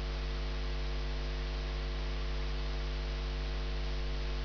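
Steady electrical mains hum, a low buzz with a row of higher overtones, over a faint even hiss.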